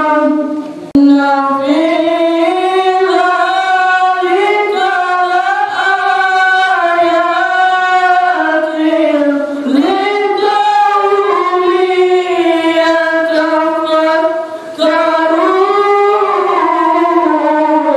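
A man's solo voice reciting the Quran in the melodic tilawah style into a microphone: long ornamented held notes whose pitch waves up and down, with short breath pauses about a second in and again about three-quarters through.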